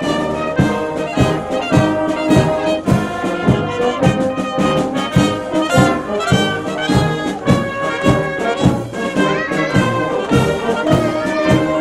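A brass band playing a tune with a steady beat of about two strokes a second.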